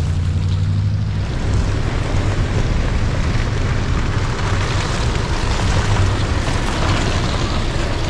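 Off-road vehicle driving on a dirt trail: a low engine hum, with a loud rushing noise of the drive that builds after about a second and a half and carries on.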